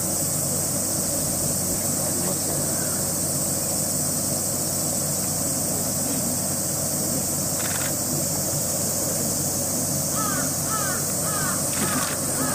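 Steady high-pitched drone of a cicada chorus. Near the end a bird calls in quick repeated chirps, a few each second.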